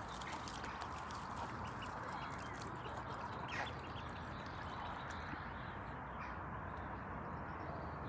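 Steady outdoor hiss at a pond with a few brief duck calls from a mallard hen and her ducklings, one clearer call about halfway through.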